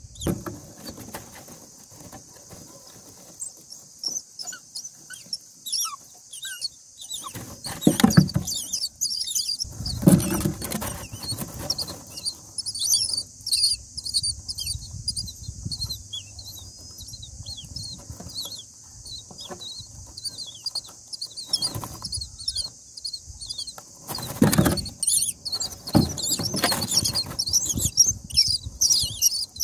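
Common (Indian) myna nestlings begging: a constant chorus of rapid, high-pitched squeaks while the adult feeds them. Loud rustling bumps of nest material come a few times, about eight and ten seconds in and again near the end.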